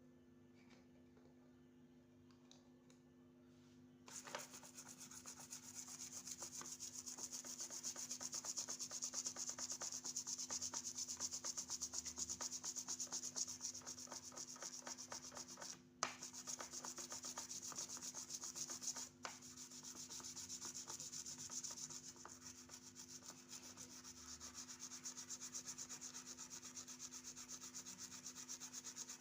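A steady, rapid rubbing or scrubbing noise starts about four seconds in and keeps going, breaking off briefly twice.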